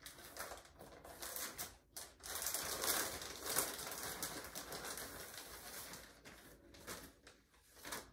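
Clear plastic wig packaging crinkling and rustling in quick, irregular crackles as the wig is worked out of the bag, thinning out after about six seconds.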